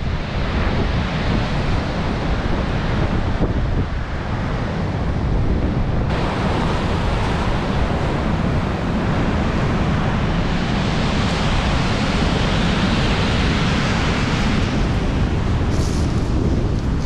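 Strong wind blowing over the microphone, with sea waves breaking; a dense, steady rushing noise that grows a little brighter about a third of the way in.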